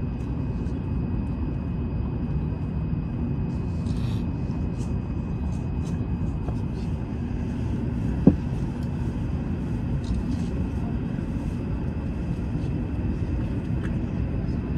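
Cabin noise inside a Hokuriku Shinkansen train: a steady low rumble with a faint steady high tone over it, and a single sharp click about eight seconds in.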